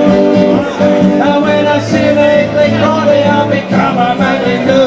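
Live acoustic guitar strumming with a man singing over it.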